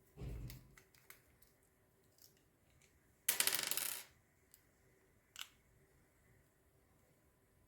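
A small metal part of a Kemei KM-2293 hair trimmer dropping onto a hard surface and clattering briefly about three seconds in, after a dull thump near the start, with a few light handling clicks.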